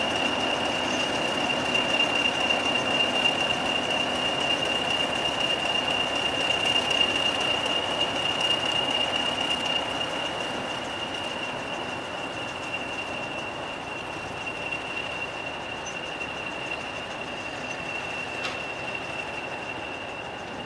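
Class 40 diesel locomotive 40106 giving its steady high turbocharger whistle, the sound that earned the class the nickname 'Whistler', over the rumble of its English Electric engine as it draws slowly away with a Class 37 behind. The engine noise is loudest in the first half and fades after about ten seconds as the locomotives recede.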